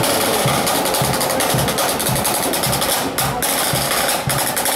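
Marching band drums: snare drums playing rapid strokes over a bass drum beating about twice a second.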